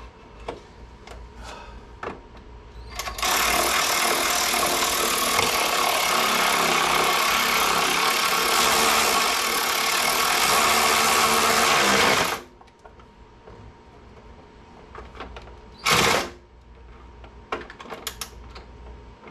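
Cordless power tool driving in a lower-fairing mounting bolt: its motor runs steadily for about nine seconds, stops suddenly, then gives one short burst near the end.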